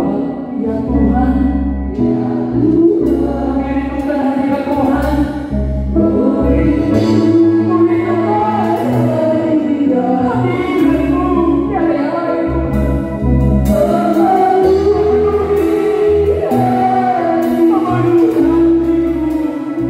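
Live gospel worship music: a group of voices singing a hymn over a band, with a steady low bass line and a drum kit whose cymbals and drums come in more strongly about four seconds in.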